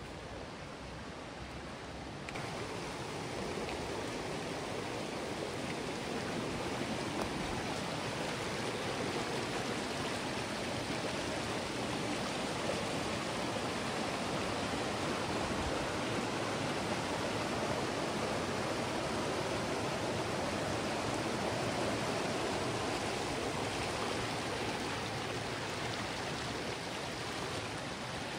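Creek water flowing, a steady rushing noise that gets louder about two seconds in.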